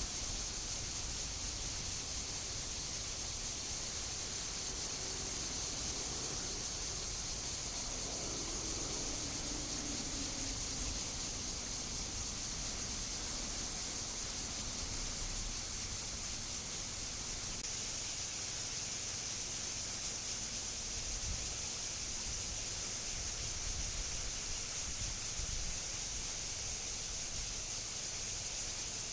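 A chorus of cicadas giving a steady, high-pitched hiss-like drone that does not change.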